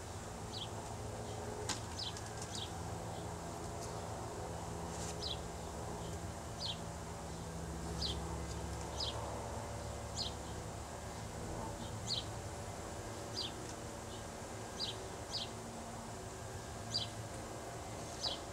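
Honeybees buzzing in a steady low hum from an opened hive, while a small bird repeats a short, falling chirp about once a second.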